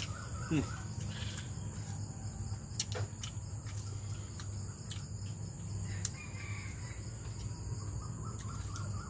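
Outdoor rural ambience: a steady high insect drone with a few short bird calls and several light clicks.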